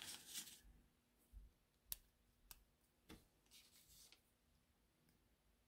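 Near silence broken by a few faint, sharp clicks and soft rustles from hands handling small parts on a workbench.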